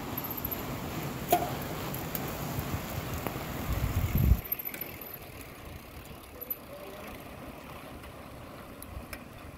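A large pack of mountain bikes rolling past on asphalt, tyres and drivetrains whirring. A low rumble cuts off suddenly about four seconds in, with scattered faint clicks throughout.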